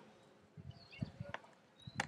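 A few faint clicks and soft knocks, a computer mouse being clicked while editing on screen.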